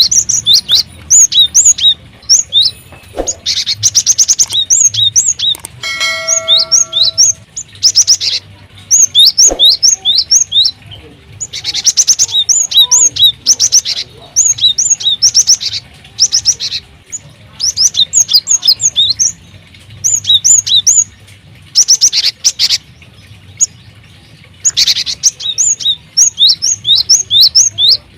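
Small aviary birds chirping in repeated rapid bouts of short, high, hooked notes, with pauses between bouts. A lower, steadier call comes in briefly about six seconds in.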